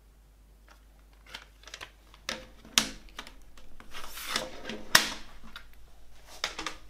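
Plastic CD jewel case being handled and opened, its lid and hinge giving a series of sharp plastic clicks, with a paper rustle as the booklet is slid out from under the lid's tabs. The loudest, a sharp snap, comes about five seconds in.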